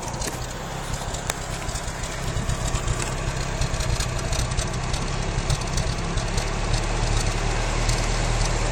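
1993 Isuzu Amigo's carbureted 2.3 L four-cylinder engine idling roughly with an uneven misfire, growing somewhat louder a few seconds in. The owner traced the misfire to a lean condition.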